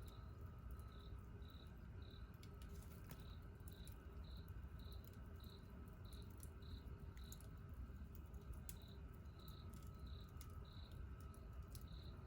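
A cricket chirping steadily about twice a second, with a short pause a little past the middle, over faint scattered crackles of a wood campfire and a low rumble.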